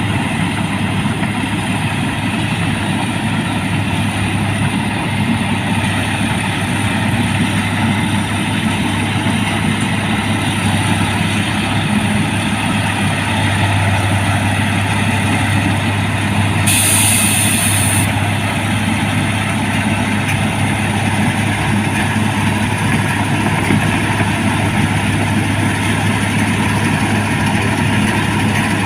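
Rice combine harvester's diesel engine and threshing machinery running steadily, with a short high hiss a little past the middle.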